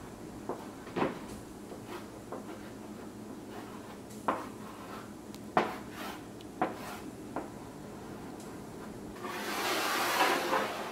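Chalk on a wood-framed chalkboard: scattered taps and light knocks as letters are written, then a longer, louder scratchy rubbing of chalk on the board near the end.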